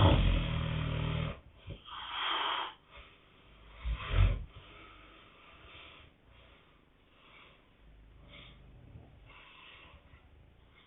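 Snoring: a loud, low snore lasting over a second at the start, a breathy hiss, a short loud snort about four seconds in, then fainter breaths.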